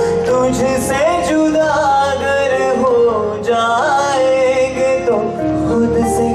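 A man singing a melody into a microphone over instrumental accompaniment, his voice gliding between long held notes.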